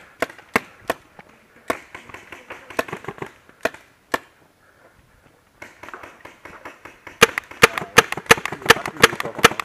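Paintball markers firing: scattered single pops for the first few seconds, a short lull, then a rapid string of loud shots, several a second, from about seven seconds in.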